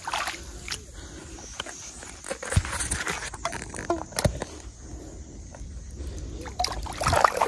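Hands working at the water's edge among floating weeds, pulling in a fishing line: scattered small splashes, rustling and handling knocks close to the microphone.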